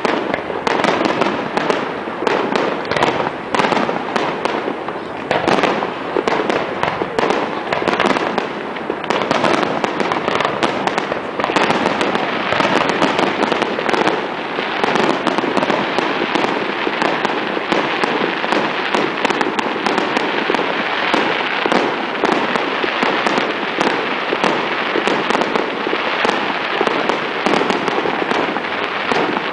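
Fireworks display: a rapid run of bangs and crackles from bursting shells, thickening about twelve seconds in into a dense, near-continuous crackle.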